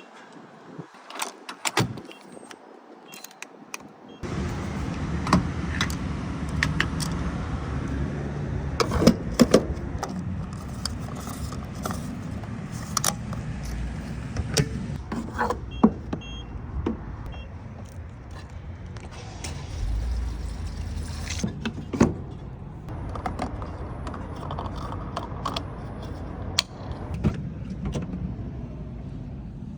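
Vehicle sounds: clicks and keys jangling, then about four seconds in a steady low engine rumble starts abruptly and keeps running, with scattered clicks and knocks over it.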